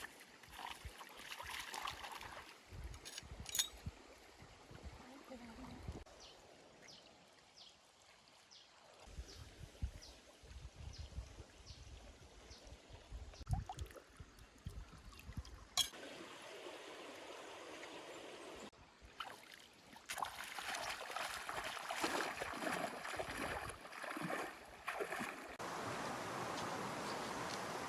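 A stream running over rocks, with scattered clicks and knocks. The water grows louder and steadier about two-thirds of the way in.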